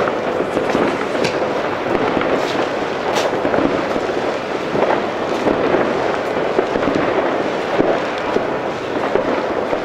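Many fireworks and firecrackers going off at once all over a town, blending into a steady crackling din. A few sharper cracks stand out in the first few seconds.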